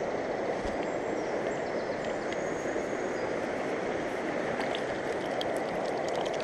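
Steady rush of a fast-flowing mountain river, an even, unbroken noise of water running over rocks.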